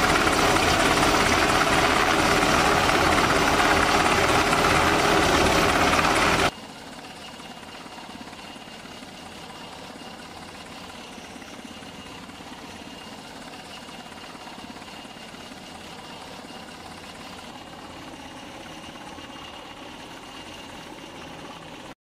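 Navy Seahawk helicopter hovering low over the water, its rotor noise loud and steady. About six and a half seconds in the sound drops suddenly to a much fainter steady helicopter noise with a thin high tone, and it cuts to silence near the end.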